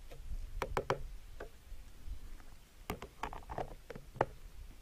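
Plastic spork scraping and tapping against a plastic camp bowl while stirring food, a scattering of short clicks, then a sharp click near the end as the lid is pressed onto the bowl.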